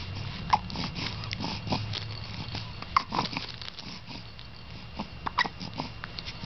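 A baby hiccuping: short, sudden hics about two and a half seconds apart, each with a brief squeak of voice, and small mouth and breathing noises between them.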